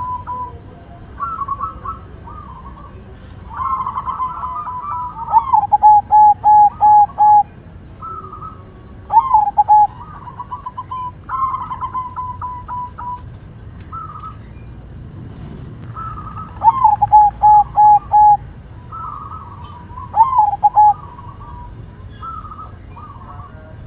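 White zebra dove (perkutut) cooing its rolling song in repeated phrases. Each phrase starts with a higher quavering trill and drops into a run of five or six short, lower coo notes, and four of these phrases stand out as the loudest.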